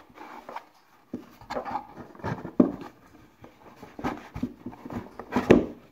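Cardboard boxes being handled on a table: irregular knocks, scrapes and rustles of the cardboard, with the loudest knocks about two and a half seconds in and near the end.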